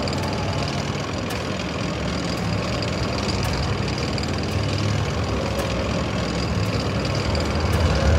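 Heavy tank engine running steadily, a low drone with faint clicks about once a second.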